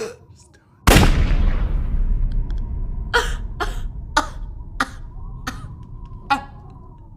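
A single loud bang about a second in, with a long rumbling decay, followed by a person coughing six times in short separate coughs.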